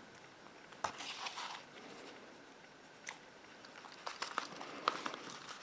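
Hands pressing and handling card stock: faint paper rustling with a few scattered light clicks and taps.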